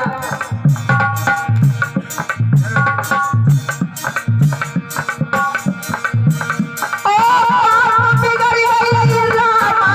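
Live Indian devotional folk music: a harmonium plays a melody over a steady hand-drum beat. About seven seconds in the music gets louder and a long, continuous melody line takes over.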